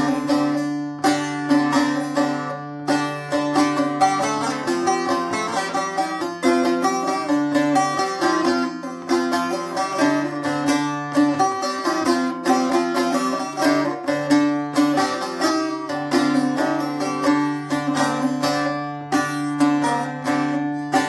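Bağlama (long-necked Turkish saz) played solo: a quick strummed folk melody of many short notes over a steady low drone note, an instrumental passage between sung verses.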